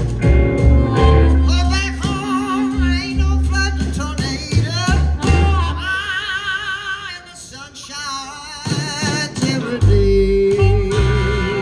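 Live blues band playing loud, with a lead guitar holding bent, wavering notes over bass and drums. The band drops back briefly about two-thirds of the way through, then comes back in full.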